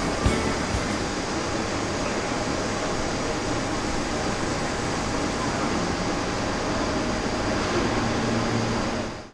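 Steady background hum and hiss of a machine hall, with faint indistinct chatter, fading out quickly near the end.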